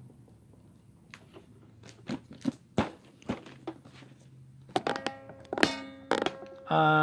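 Cardboard pizza-style collector box being closed and handled, with a few dull thunks of the lid and box. Near the end come a few seconds of pitched, tune-like sound.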